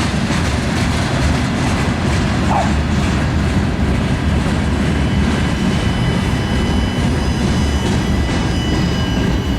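Freight train rolling past: a steady rumble and clatter of steel wheels on the rails. Faint high wheel-squeal tones come in during the second half.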